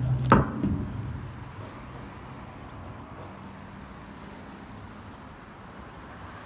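A music transition ends with a sharp hit about a third of a second in. After that there is only a steady, low outdoor background noise of the vehicle-and-street kind, with a few faint light ticks near the middle.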